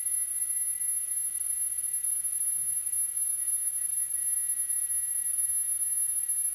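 A steady, thin, high-pitched calibration tone from a Tandberg TCD 330 cassette deck's built-in test generator, running over a faint hiss. It sounds while the record-head azimuth is being set for the highest meter reading.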